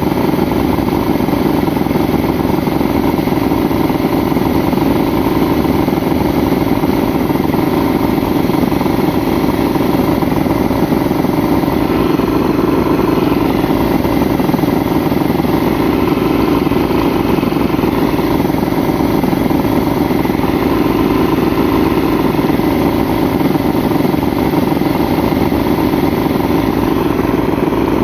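Mercury outboard engine running steadily. Its stator output is being measured under way, and the owner takes it to be too weak to fire the ignition coils: a failing stator.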